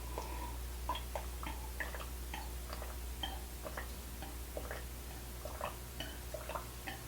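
Close-miked chewing of a sushi roll: small, irregular wet mouth clicks, a few a second, over a steady low electrical hum.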